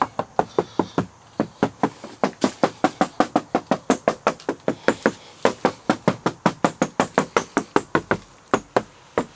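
Knuckles knocking rapidly and repeatedly on a car's sheet-metal body panel, about four or five knocks a second with a brief pause near the end. The knocks have a high-pitched ring, the sound of metal with little or no deadener on it.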